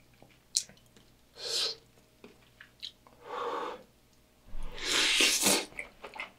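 A person eating a spoonful of curry-topped beef rice bowl close to the microphone: two soft breathy sounds, then about four and a half seconds in a loud slurp lasting about a second as the spoonful goes in, followed by small wet chewing clicks.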